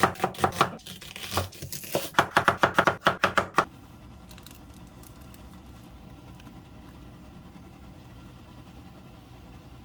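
Knife chopping on a cutting board: a series of sharp chops, quickening into a fast run of about eight a second, that stops about three and a half seconds in. A steady low hum follows.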